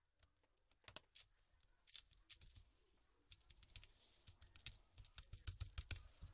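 Light, irregular plastic clicks and taps as a laptop keyboard with its keycaps removed is pressed along its edge and handled on a plastic sheet. The clicks come in small clusters, a sharp pair about a second in and a quick run near the end.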